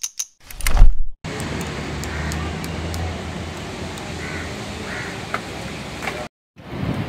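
An electronic logo sting opens the sound: a few sharp clicks and then a loud, deep boom lasting under a second. After a cut comes steady street-stall background noise, a constant hiss over a low traffic hum with a few faint short calls; it drops out briefly near the end and resumes.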